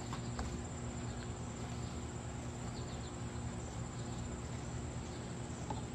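Crickets trilling steadily at a high pitch, over a low steady hum, with a few faint clicks.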